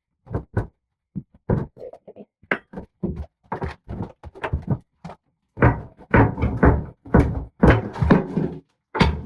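Crowbar prying concrete backer board off a bathroom wall: a run of irregular knocks, thuds and crunches as the board is pulled off its screws. The strikes come closer together and louder through the second half.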